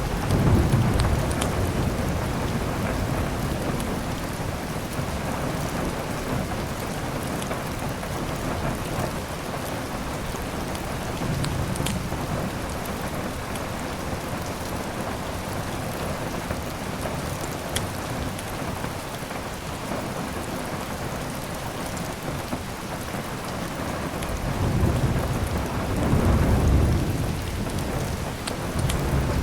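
Steady heavy rain with thunder rolling low about a second in, more faintly midway, and again strongly near the end. A few sharp crackles from a wood fire come through the rain.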